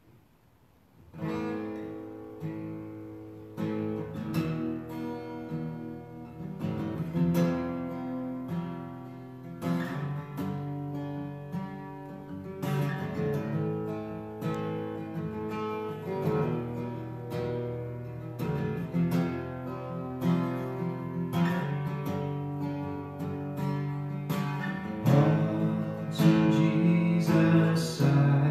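Acoustic guitar strummed in a steady run of chords, starting about a second in and growing louder near the end.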